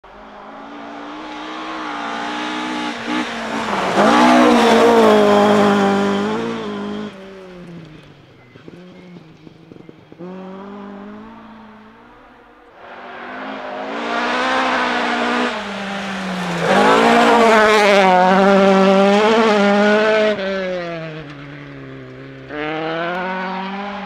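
Rally cars at full throttle on a gravel forest stage, engines revving hard and changing up through the gears as they pass. There are two long loud passes, with shorter snatches of other cars cut in between.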